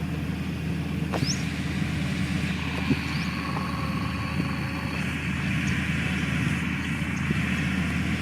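Heavy diesel engine of earthmoving machinery running steadily, with a few faint clicks and knocks over it.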